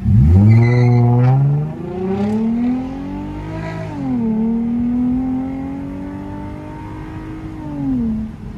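2009 Lexus IS250's 2.5-litre V6 with a straight-piped exhaust (resonator and mufflers deleted) accelerating at full throttle from a stop, heard from inside the cabin. It starts suddenly and loud, and the revs climb steeply, dropping at two upshifts about 1.5 s and 4 s in. They rise more slowly after that and fall away near the end as the throttle is lifted.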